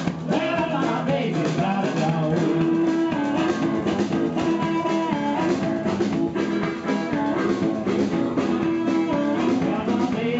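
Live blues band playing amplified guitar and drum kit with a steady beat, with a man singing.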